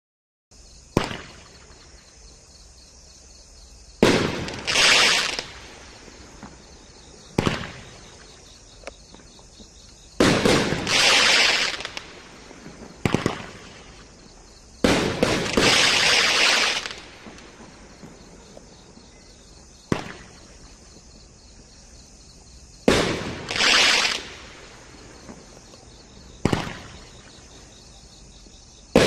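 Wild Dragon FF5014 Pyro Fest 500-gram fireworks cake firing its shots one at a time, a few seconds apart. Each shot is a sharp launch bang, and several are followed by a second or two of crackling as the crackling-ball stars burst.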